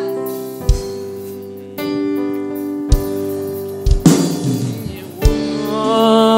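Slow keyboard music, piano-like chords held and changing every second or two, with a few low drum hits.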